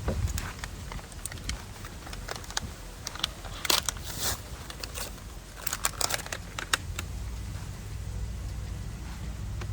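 Scattered clicks and crinkling as plastic packaging is handled and opened, busiest in the middle, over a low rumble of wind on the microphone.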